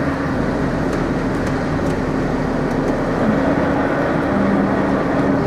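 Renault Premium truck's diesel engine running at low speed, heard from inside the cab as a steady drone with a low hum whose pitch shifts slightly a few seconds in.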